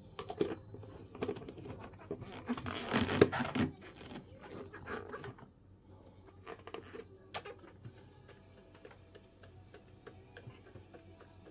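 A plastic tub of sculpin roe in soy sauce being handled and turned over. Clicks and knocks of plastic come in the first few seconds, with a louder scraping rustle about three seconds in, then faint scattered ticks.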